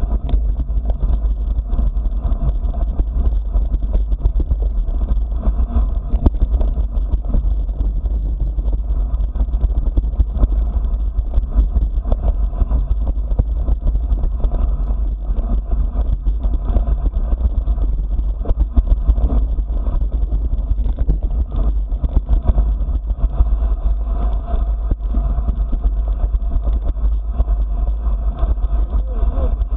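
A motor vehicle's engine running steadily at low speed on a rough gravel track, with frequent small knocks and rattles.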